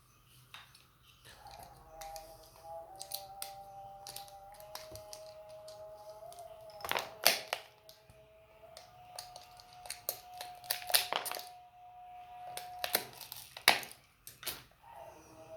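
Sharp clicks, taps and scrapes of tools and hands working on the opened plastic casing and internals of an Apple 85 W MagSafe 2 charger, coming in clusters with the loudest clicks about seven and fourteen seconds in. Faint background music with long held notes plays underneath.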